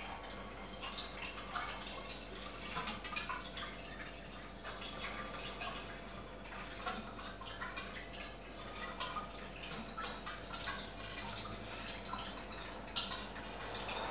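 Pre-mixed blue coolant poured through a hose into the reservoir of a PC water-cooling loop, trickling and splashing in an irregular patter of small drips.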